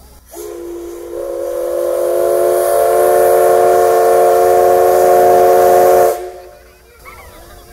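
C62 2 steam locomotive's whistle giving one long blast of about six seconds, a chord of several pitches that fills out and swells over the first couple of seconds, holds, then cuts off sharply. It is the whistle sounded as the SL Steam train is about to depart.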